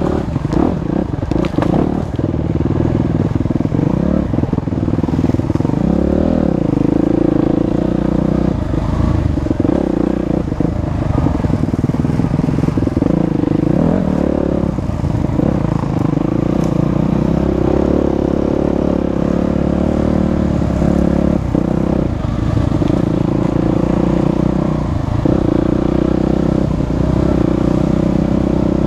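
Enduro dirt bike engine running steadily under way on a rough dirt track, heard close from the bike itself, its pitch shifting up and down with the throttle. A few sharp knocks from the bike jolting over the ground in the first couple of seconds.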